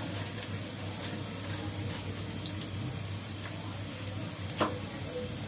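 Steady sizzle of sliced onions frying in oil in an aluminium pot, with one sharp clink about four and a half seconds in.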